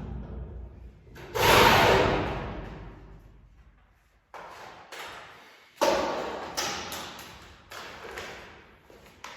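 A series of heavy thumps and clattering knocks, each fading out over a second or two. The loudest comes about a second and a half in, and a run of smaller knocks follows over the last five seconds.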